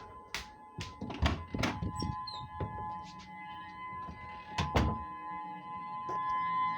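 Outdoor warning siren sounding a steady tone on two close pitches, heard from a distance. A string of sharp knocks cuts across it, loudest about a second in and again just before five seconds.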